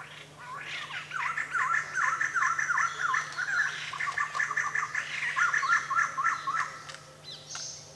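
A flock of white-crested laughingthrushes calling together in a fast, chattering chorus of repeated dipping-and-rising notes. The chorus stops a little before the end, leaving a few fainter calls.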